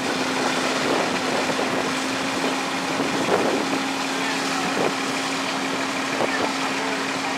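Fire engine's engine running steadily at pumping speed, supplying charged hose lines: a steady hum under an even rush of noise.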